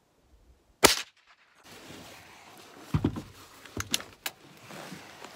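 A single sharp .22 LR rifle shot from the Chiappa Double Badger's top barrel about a second in. It is followed a couple of seconds later by a dull knock and a few quick clicks of handling.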